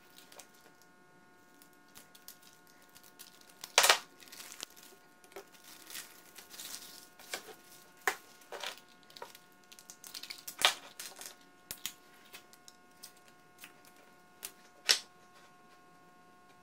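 Scattered clicks, knocks and crinkling as small objects are handled and set down on a plywood workbench: keys, metal drawer slides in their plastic packaging, and pine boards. The sharpest knocks come about 4, 11 and 15 seconds in.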